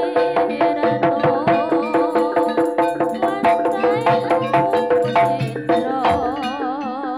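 Live jaranan gamelan music: barrel-drum (kendang) strokes in a fast, even rhythm over ringing metal notes. About six seconds in, a held melody tone with a wavering pitch enters over the drums.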